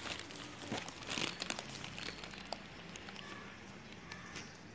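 Cloth rustling and crinkling as it is handled and spread flat, with scattered light clicks; busiest in the first second and a half, then fainter.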